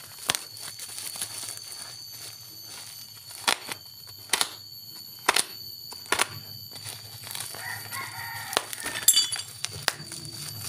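Plastic parcel wrapping and packing tape being torn open by hand, crinkling, with several sharp snaps as it rips. A rooster crows in the background a little past the middle.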